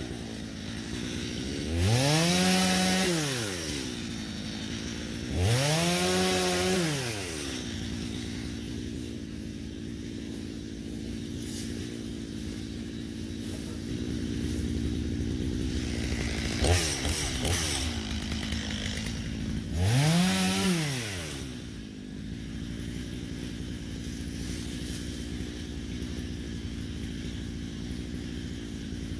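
Stihl MS 250 two-stroke chainsaw idling, revved to full throttle in four short bursts that rise and fall in pitch, cutting brush.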